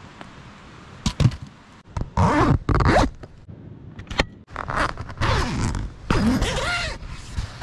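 A tent zipper being pulled in a run of short, scratchy strokes, with a few sharp clicks in between, as the tent is zipped closed.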